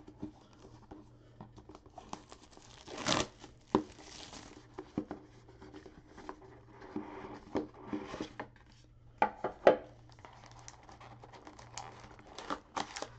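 Wrapping being torn and crinkled off a sealed cardboard box of trading cards, then the cardboard boxes handled, slid apart and opened by hand, with irregular rustles, taps and scrapes.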